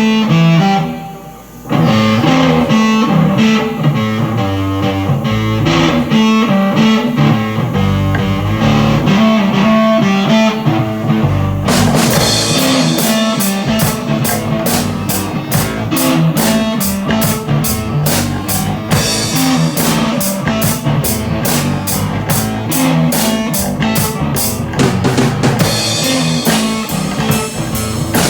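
Instrumental opening of a rock song: guitar over bass and drums, with a short drop in level about a second in. Cymbals come in strongly about twelve seconds in, and the full band plays on.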